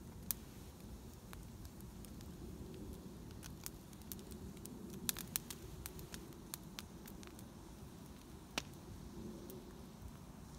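Wood fire of burning sticks and branches crackling, with irregular sharp pops over a low steady rumble; a few pops stand out louder, around the middle and again later.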